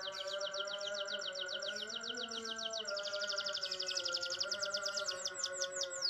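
Domestic canary singing a fast rolling trill of rapidly repeated high notes that quickens about halfway through and breaks into slower falling notes near the end, over steady lower-pitched background tones.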